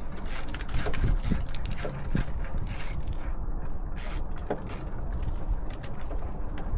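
Hand tools and metal parts being handled: scattered, irregular clicks and knocks over a steady low rumble.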